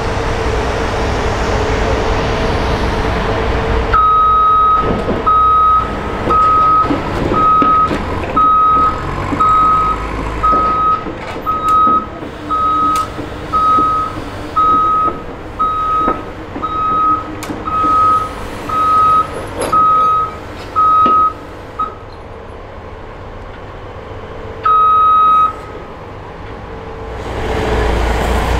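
Backup alarm beeping about once a second for nearly twenty seconds, then a single longer beep a few seconds later, over the steady running of heavy equipment engines.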